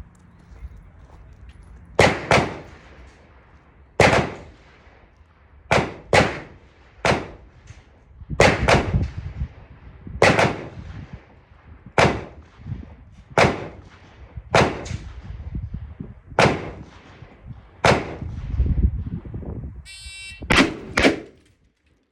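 Repeated gunshots with echoing tails, some in quick pairs, from other guns firing on the range. Near the end a shot timer beeps and a Beretta 1301 Tactical 12-gauge semi-auto shotgun fires two rapid shots of 00 buckshot.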